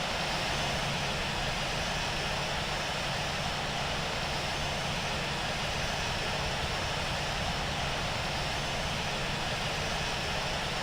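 Airbus A380 landing: steady jet engine and airflow noise, an even rushing sound with a constant low hum.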